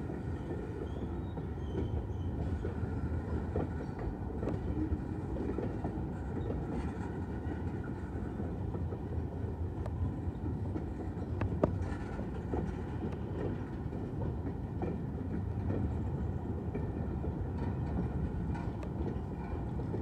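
Freight train of tank cars rolling past: a steady rumble of steel wheels on rail with scattered clicks, and one sharp clank a little past halfway.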